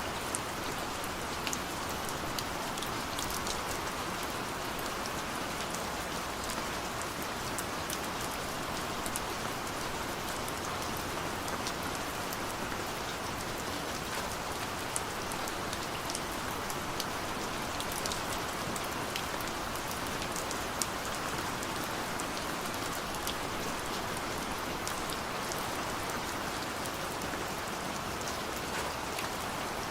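Steady rain falling: an even hiss with many scattered, sharper drop ticks.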